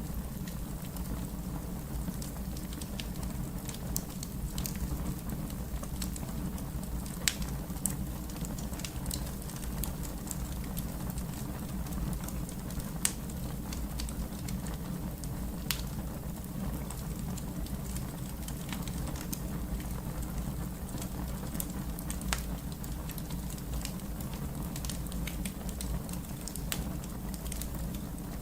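Fire crackling steadily: a continuous low rumble of burning with irregular sharp pops and snaps, a few louder ones scattered through.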